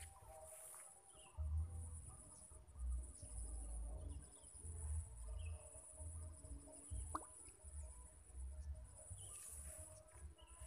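Outdoor ambience: wind buffeting the microphone in gusts, a steady high insect drone, and scattered short bird chirps.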